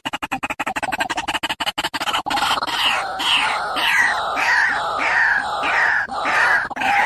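White-breasted waterhen (ruak-ruak) calling: a fast run of short clucking pulses, about ten a second, then from about two seconds in a chain of loud repeated 'kru-ak' calls, roughly two a second.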